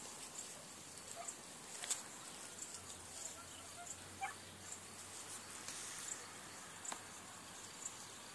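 Faint summer field ambience: insects chirping steadily in the grass, with a few brief faint chirps about a second in and near the middle.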